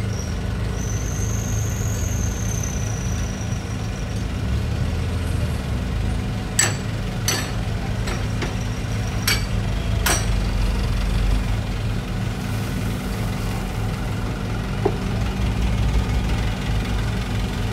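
Heavy diesel dump-truck engines running steadily. Four or five sharp knocks come between about six and ten seconds in, and a thin high whine sounds for a couple of seconds near the start.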